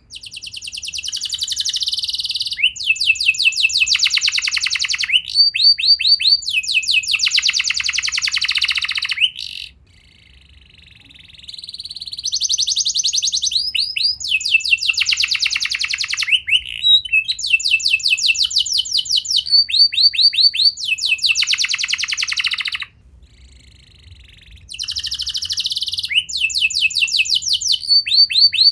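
Domestic canary singing long phrases of fast rolling trills and rapidly repeated notes. The song comes in three bouts, with short pauses about ten and twenty-three seconds in.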